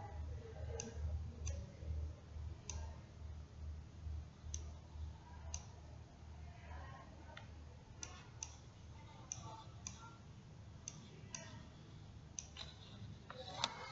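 Computer mouse clicking, about a dozen single clicks at irregular intervals, over a steady low hum; the loudest click comes near the end.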